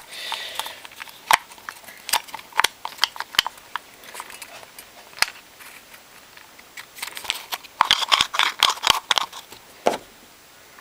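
Small metal and plastic parts of a disassembled Commodore electric fuel pump clicking and knocking as they are handled and fitted back together, with a denser run of clicks toward the end.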